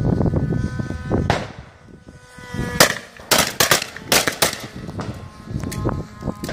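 Shotguns firing a rapid volley at an airborne target: about eight sharp shots from several guns, bunched between about one and four and a half seconds in, followed by a couple of fainter shots.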